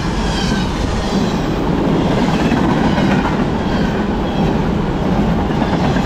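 Intermodal double-stack well cars of a freight train rolling past at speed: a steady loud rumble of steel wheels on rail, with faint high wheel squeals now and then.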